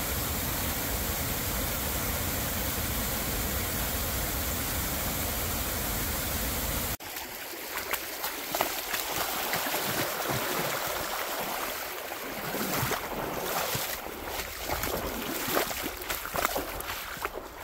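Falling water from a waterfall: a steady, full rush for about seven seconds, then an abrupt change to a nearer, uneven splashing and gurgling of water with scattered sharp spatters.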